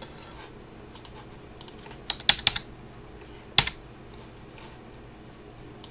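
Computer keyboard keystrokes, a few scattered presses rather than steady typing: a quick group of three about two seconds in and a single sharper press at about three and a half seconds.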